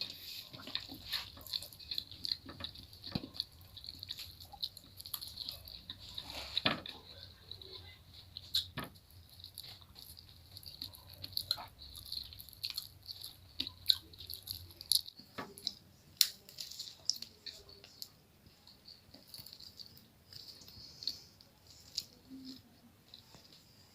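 Eating sounds close to the microphone: chewing and mouth clicks, an irregular scatter of short sharp ticks. A low hum underneath stops about fifteen seconds in.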